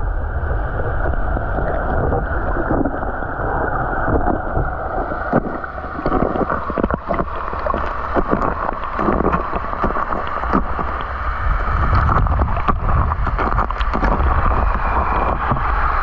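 A waterfall's plunge heard through a camera held underwater in its pool: a loud, steady, muffled rumble with the treble cut away, and scattered clicks and knocks throughout.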